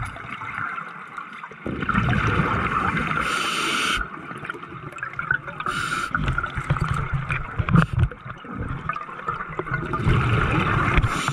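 Scuba breathing through a regulator underwater: exhaled bubbles gurgle and rumble for several seconds at a time, broken by short hisses.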